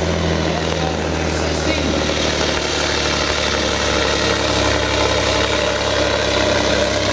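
Volvo truck's diesel engine running at full load as it drags a truck-pulling sled: a loud, steady heavy drone whose pitch shifts about four seconds in.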